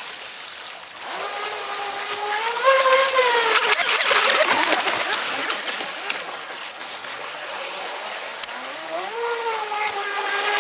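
Brushless electric motor of a 4S LiPo RC racing catamaran whining at speed across choppy water, over a hiss of spray. The whine rises in pitch about a second in, falls away around the middle, and rises again near the end.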